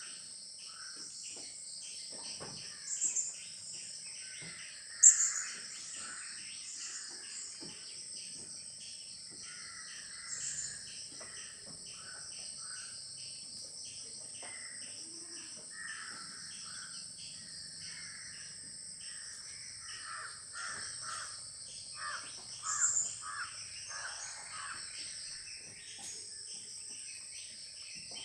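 A steady high drone of insects with birds calling over it again and again. A few short, sharp, high chirps cut in, the loudest about five seconds in.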